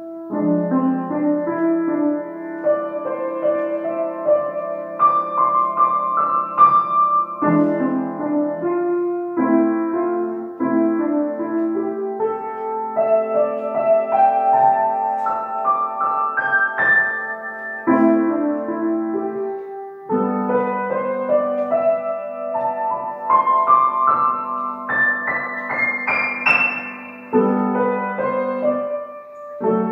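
Upright piano played solo from sheet music: a piece in short phrases, with runs that climb higher in pitch around the middle and near the end.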